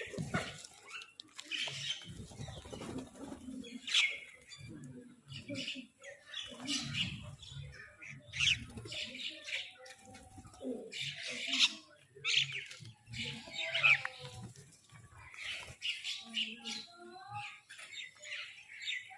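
Crows squabbling over food: repeated short, harsh calls at irregular intervals, mixed with wing flapping.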